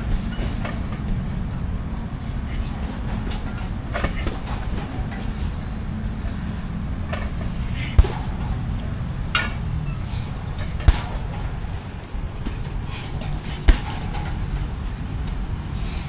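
Steady low rumble of a moving vehicle, with a few sharp knocks.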